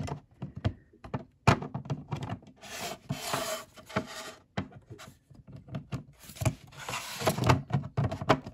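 Plastic parts of a Mattel toy shipping crate being handled and pushed together: irregular scraping and rubbing of plastic on plastic, broken by a few sharp clicks as the bottom panel is fitted on.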